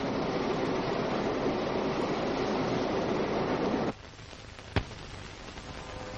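Steady hiss and crackle of an old film soundtrack over blank leader, dropping abruptly about four seconds in. A single sharp pop follows a little under a second later.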